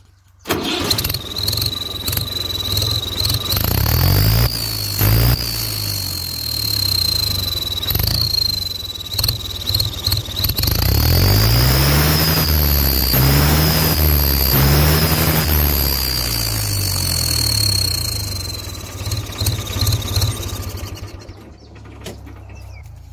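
Tractor engine starting and being revved with a turbo-sound whistle fitted on its exhaust stack. The whistle gives a high, steady, turbocharger-like whine that climbs and falls with each rev. The whistle fades out and the engine sound dies down near the end.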